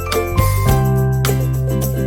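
Upbeat background music with a steady beat, bass and bright chiming, jingling tones.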